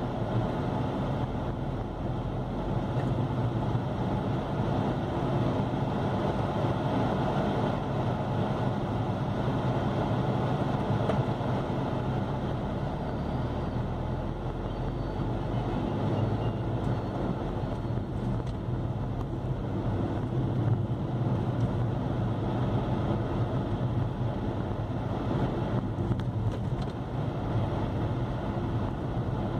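Steady engine and tyre noise of a car driving at moderate speed, heard from inside its cabin.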